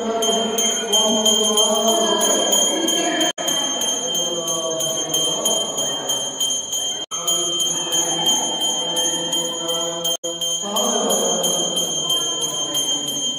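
A small bell rung rapidly and without a break, with voices singing a devotional chant beneath it. The sound cuts out for an instant three times.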